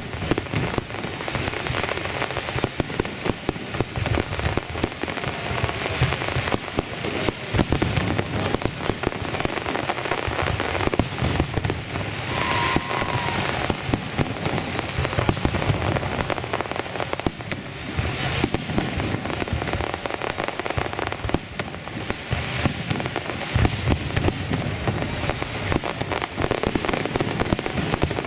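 Fireworks display: aerial shells bursting one after another in a dense, continuous run of bangs and crackles.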